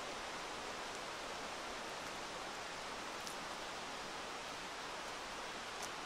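Steady rush of flowing river water, even and unbroken, with two faint brief ticks over it.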